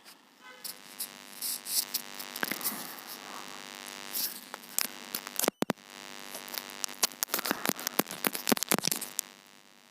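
Sellotape being peeled off gift packaging, crackling and ripping in irregular pulls, with a brief break about halfway.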